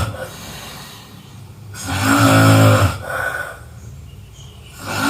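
A person snoring in a slow, regular rhythm: the tail of one loud snore right at the start, a full loud snore lasting about a second in the middle, and the next beginning near the end, with a much softer breath sound between them.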